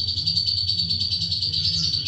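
Long-tailed shrike (cendet) singing a fast, high, steady trill of rapidly repeated notes.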